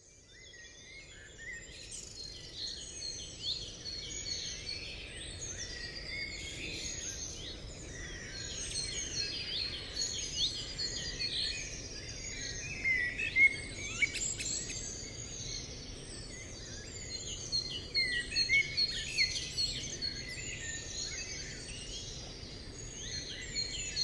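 A chorus of songbirds chirping and trilling over a faint steady background hiss, fading in at the start.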